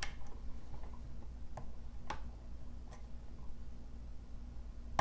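A few sharp, separate clicks of a lock pick and tension tool against a challenge padlock being handled, about five over the first three seconds, over a steady low hum.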